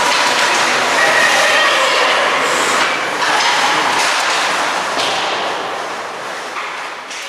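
Ice hockey rink game noise: a steady, echoing wash of skates on ice and play, with a few sharp clacks of sticks or puck. The sound tapers off near the end.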